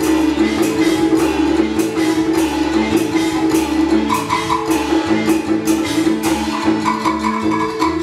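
Taiwanese opera (gezaixi) band accompaniment playing an instrumental passage: a sustained melody over a moving bass line, with a steady percussion beat.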